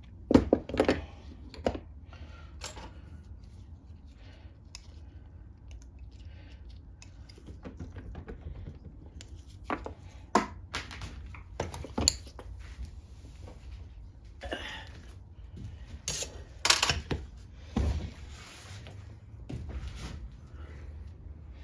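Small metal hand tools clicking and clinking against a Tecumseh mower engine's parts in scattered, irregular knocks, with a few louder clanks.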